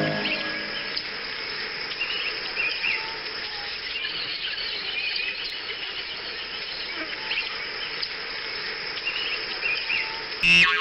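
Outdoor nature ambience: birds chirping in short, scattered high calls over a steady hiss, with a sudden loud sound effect breaking in near the end.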